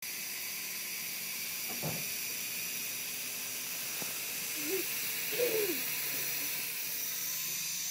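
Syma S107G toy helicopter's small electric motors and coaxial rotor blades spinning while it sits on the carpet, a steady high whirring hiss.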